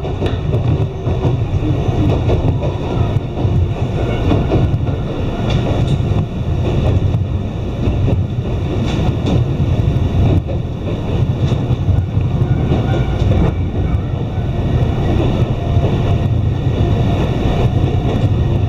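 Iyotetsu Takahama Line electric train running, heard from inside the passenger car: a steady low rumble of wheels on rails with occasional clicks.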